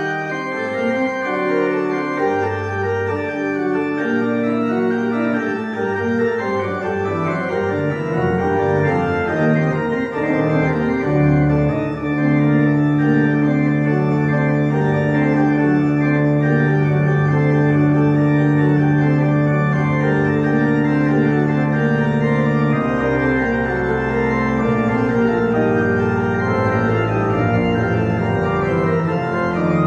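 Church organ playing sustained chords with both hands over held bass notes; a long low bass note holds through the middle and changes a little past two-thirds of the way in.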